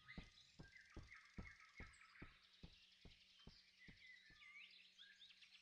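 Very faint forest ambience from an animated film: soft bird chirps, with a run of soft, evenly spaced taps, about two or three a second, that fade away over the first four seconds.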